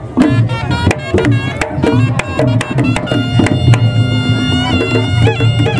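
Reog Ponorogo music: kendang drums beaten in quick, dense strokes. From about three seconds in, a slompret reed pipe joins with a held, wavering melody.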